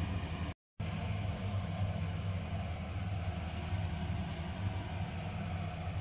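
A steady low hum, like a small motor or fan running, broken once by a split-second dropout under a second in.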